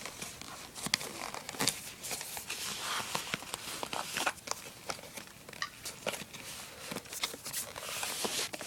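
Knife box packaging being opened and handled: crinkling and rustling with many short clicks and taps.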